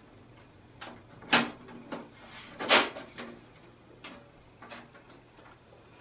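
Desktop PC case's side panel being fitted back onto the chassis: a series of knocks and clacks, the two loudest about a second and a half and about three seconds in, with a brief scrape between them as the panel slides into place. Lighter knocks follow as the case is handled.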